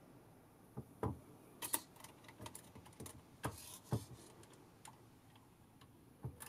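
Faint, irregular small clicks and taps, about eight over several seconds, as the film roller assembly and its grub screws inside a Krasnogorsk-1 16mm camera are handled.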